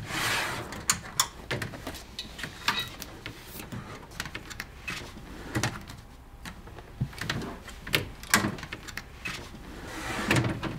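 Scattered clicks, knocks and rustles of a slide-out drawer on a footbed-molding unit being opened and a footbed blank handled in it.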